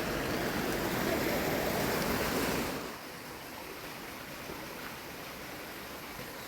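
Steady rushing of water, louder for about the first three seconds, then dropping to a quieter, even rush.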